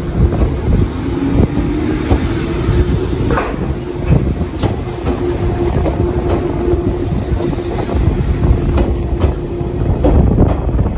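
JR 185 series electric train pulling out of the station and rolling past at close range: a steady low rumble and a steady hum, with wheels clicking over the rails now and then.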